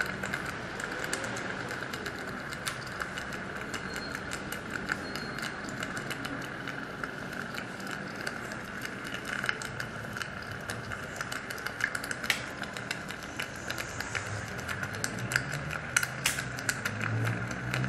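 Dental operatory sounds during an impression: a steady hiss, likely from suction, with irregular clicks and rattles of the instruments while impression material is syringed from an automix tip. A few sharper clicks stand out near the end.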